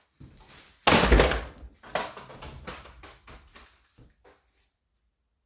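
A loud thump about a second in, then a sharp knock and several lighter knocks and clatters that die away after about four seconds: something solid being handled and set down.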